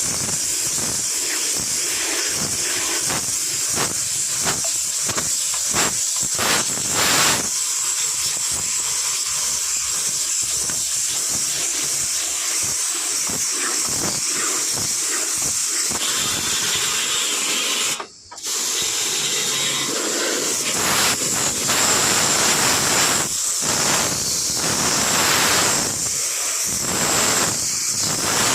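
Steady, loud hiss of a high-pressure jet used in servicing an air conditioner. It cuts out briefly about two-thirds of the way through, then resumes.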